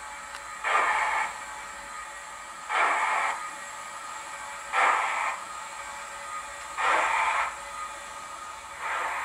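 Steam exhaust chuffs from the model's DCC sound decoder, a Mr Soundguy Merchant Navy sound file played through a small loudspeaker, five of them about two seconds apart as the locomotive creeps forward, with a steady faint hiss between them.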